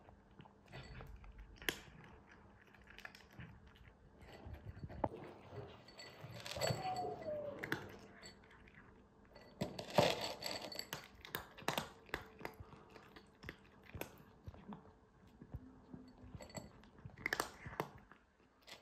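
Cat eating dry kibble from a glass bowl: irregular sharp crunches and clicks as it bites and chews the pellets, with a dense cluster of crunches about ten seconds in.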